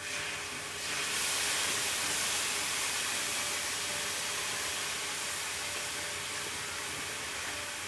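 Marinated steak pieces sizzling on a hot Blackstone flat-top griddle. The hiss starts suddenly as the meat is poured on, swells about a second in, then goes on steadily and slowly eases.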